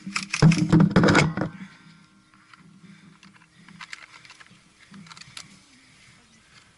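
Airsoft gun firing a rapid full-auto burst of clicking shots lasting about a second and a half, followed by a few faint single clicks.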